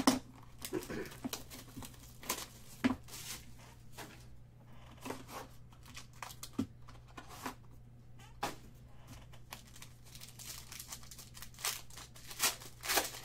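Cardboard trading-card box being opened by hand, then a foil card pack torn open and crinkled, with irregular short rustles and snaps; the tearing is loudest near the end.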